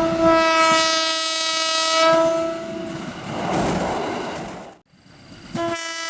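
KRL Commuter Line electric train's horn giving a long steady blast, the driver's Semboyan 35 horn signal greeting trackside watchers. It stops after about two and a half seconds, giving way to the rumble of the train running past, which cuts off suddenly. A second horn blast starts near the end.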